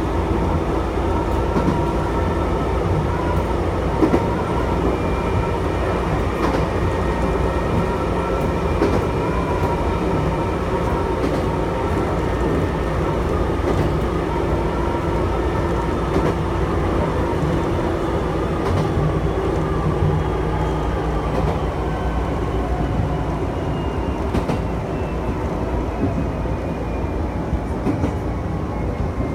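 Chichibu Railway electric train running on the line, heard from inside the front car: steady rumble of wheels on rail with occasional clicks over rail joints and a whine from the traction motors. Near the end the whine falls slowly in pitch and the sound eases as the train slows.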